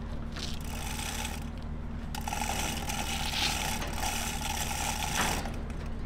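Manual chain hoist being worked under a load: its chain rattles through the block and the pawl clicks, stopping about five seconds in. A steady low hum runs underneath.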